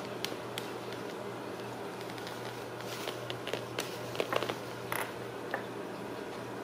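Light scratching and rustling of Ragdoll kittens' claws catching on fabric and carpet, in scattered short clicks that bunch together about four seconds in, over a steady low room hum.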